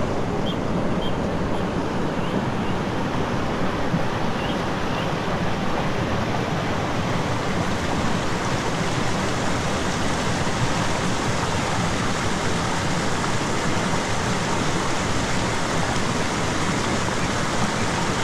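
Mountain stream rushing over rocks close by, a steady, even wash of water.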